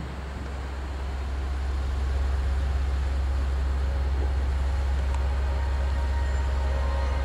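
Diesel railcar engine running, a steady low drone that grows louder over the first two seconds and then holds.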